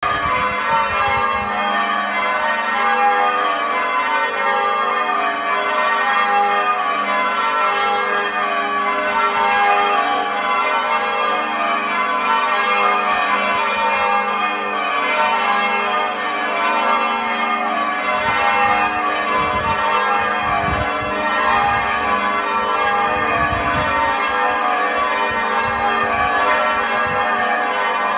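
A peal of church tower bells ringing without a break, several bells struck one after another in constantly changing order, as in English change ringing. A low rumble comes and goes now and then in the second half.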